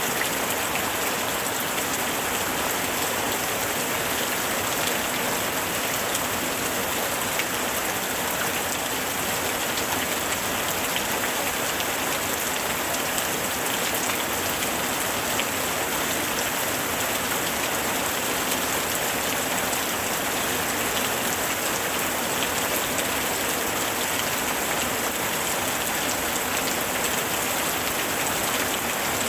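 Steady, even rain falling, with the fine patter of many drops striking a surface.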